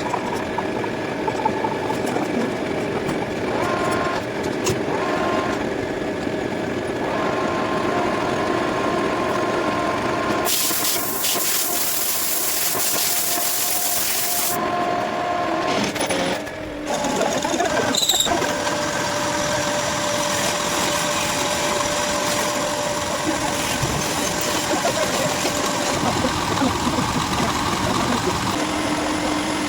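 A machine tool running steadily with a mix of held tones. About ten seconds in, a loud hiss lasts roughly four seconds and then cuts off, and a sharp click follows a few seconds later.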